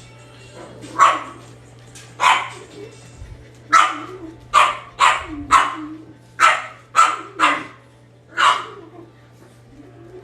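A dog barking repeatedly, about ten sharp barks at an uneven pace, coming fastest in the middle.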